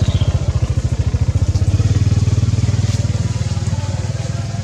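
A small engine, like a motorcycle's, running steadily with a fast even pulse, easing off a little near the end.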